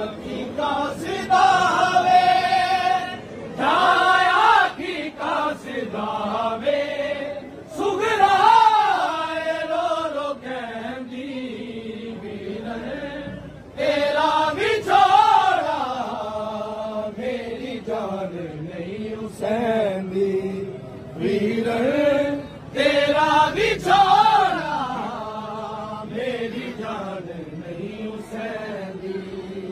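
Men chanting a noha, a Shia mourning lament, in long drawn-out melodic phrases, the recitation carried by several voices together.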